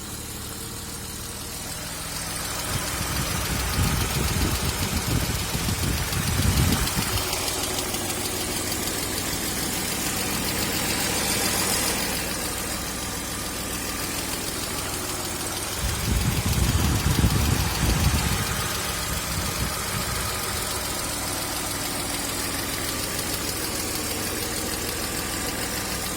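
BMW M50B25 inline-six, the non-VANOS version, running hot with a tapping from the top of the engine that only starts once it is at operating temperature; the owner traced it to the hydraulic lifters. It grows louder for a few seconds twice.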